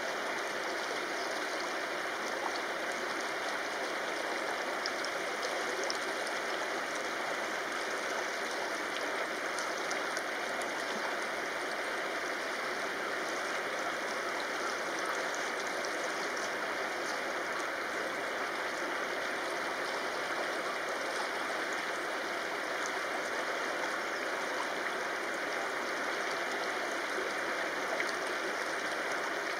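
Shallow river running steadily over stones, an even rushing babble of water. A brief splash near the end as a bathing northern goshawk dips into the current.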